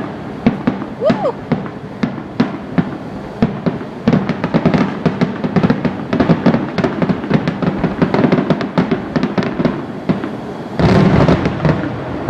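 Fireworks display: a rapid, dense barrage of bangs and crackling bursts with no let-up, swelling into a louder volley about eleven seconds in.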